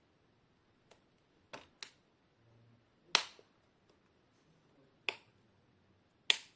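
Sharp plastic clicks of an Acer Aspire laptop's screen bezel clips snapping loose as the bezel is pried away from the LCD panel with a tool. There are about six clicks at irregular intervals, the loudest a little after three seconds in; each click means a clip has come free.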